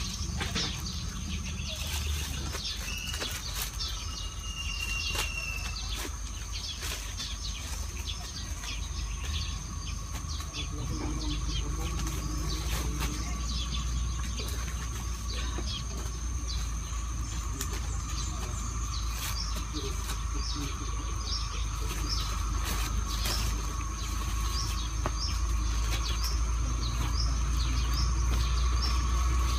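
Clear plastic bags rustling and crinkling as ginger rhizomes are sorted and bagged by hand, over a steady low rumble that grows louder about eleven seconds in and a thin, steady high-pitched tone. A whistle-like bird call lasts a few seconds, starting about three seconds in.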